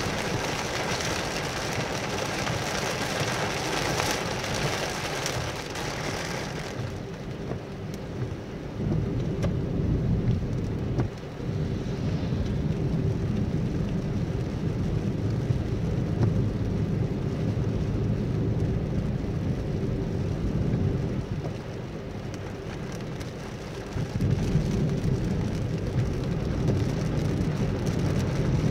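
Rain falling on a car's windscreen and roof, heard from inside the cabin, over the low rumble of the car driving on a wet road. The rain hiss is heavy for about the first seven seconds, then drops away, leaving mostly the low road and engine rumble.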